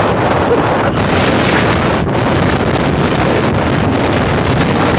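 Wind blowing hard across the microphone, a loud, steady noise.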